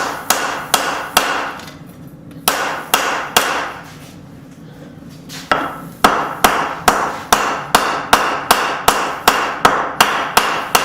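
Hand hammer striking spring steel on an anvil, each blow ringing briefly. There are a few blows, a pause, three more, a longer pause, then a steady run of about two to three blows a second. The blows are straightening the blade, which bent into a curve during beveling.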